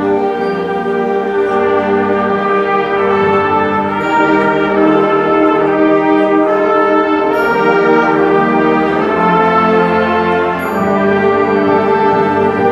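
A large school ensemble playing live, brass to the fore, in full sustained chords that swell in the middle and ease off briefly near the end.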